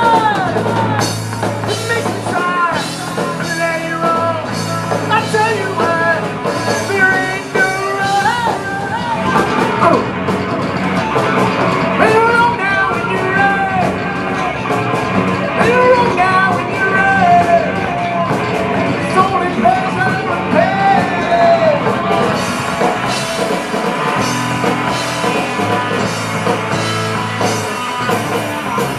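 Rock band playing a song, with a singer over a drum kit.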